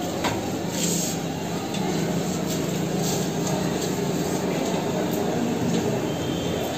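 A steady low rumbling hum, with faint rustles and light clicks of a cloth wiping a TV stand and a remote being picked up.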